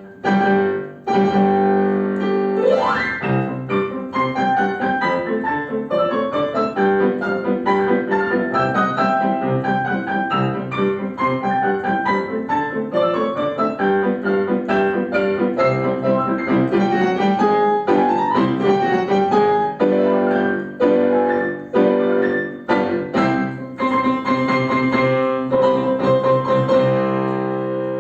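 Piano duet, two players at the keyboard, playing a classical piece, with a quick upward glissando about three seconds in and another about eighteen seconds in, closing on held chords near the end.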